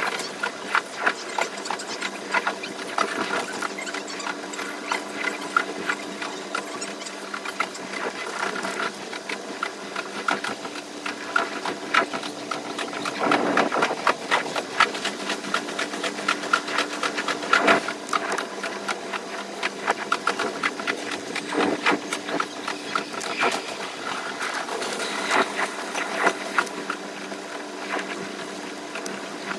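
JR West 283 series limited express train running, heard from the cab and played back fast. It is a quick, continuous rattling clatter of wheels over rail joints and points over a steady hum.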